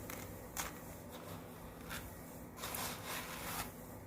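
Hands stirring a dry mix of wheat bran, cracked yellow corn, wheat grain and poultry feed in a bowl: soft grainy rustling and scraping in a few short strokes, with a longer run of stirring near the end.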